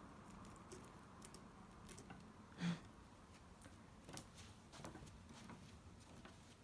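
Faint, scattered small clicks and scratches from a pet squirrel moving about and handling things, with one slightly louder short sound a little under three seconds in.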